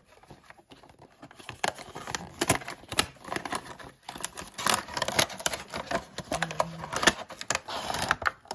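A cardboard booster box being opened by hand and a clear plastic tray of miniature figures drawn out of it: a dense run of quick crackles, clicks and scrapes of stiff cardboard and plastic.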